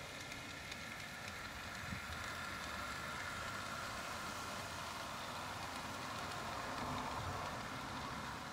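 Small battery-powered 16mm-scale garden railway locomotive and its two coaches running along the track: a steady rolling rumble with a faint motor hum, growing a little louder as the train passes close by.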